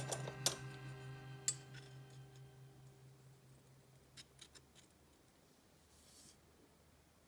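Light metallic clicks and clinks of vintage steel machinist's squares and calipers being handled. The sharpest come in the first second and a half, and three softer ones come about four seconds in. A sustained background music tone fades away underneath.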